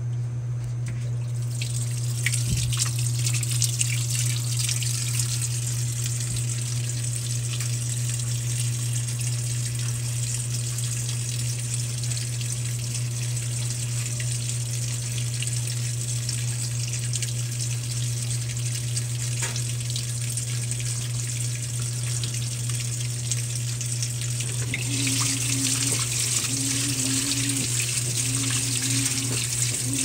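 Brastemp Vantage top-load washing machine filling: water pours steadily into the drum onto the wet load over a low hum. About 25 s in, the water noise grows louder and the motor starts in short on-off bursts as the load begins to churn.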